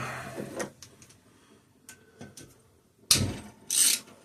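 Hand tools working on a small engine: a few faint clicks, then two short scraping rasps about three seconds in.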